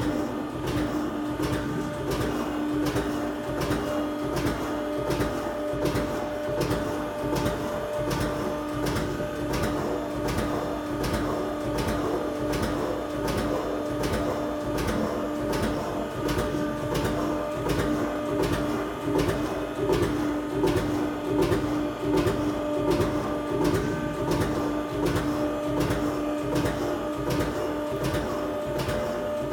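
INDUMASCH HP 750 CNC-Z CNC punching machine running a punching cycle: evenly repeated punch strokes about two a second over the steady hum of the machine's drive.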